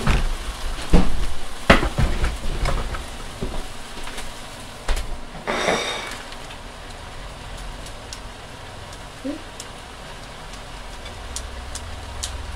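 A plate and kitchen things knocked and set down on a countertop, several sharp clacks in the first few seconds, then a steady low hiss of chicken frying in a pan, with faint scraping ticks near the end as a vegetable peeler shaves a wedge of hard cheese.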